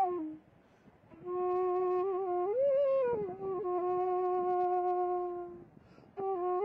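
Slow instrumental background music: a single melody line of long held notes with small ornaments, pausing briefly about half a second in and again near the end.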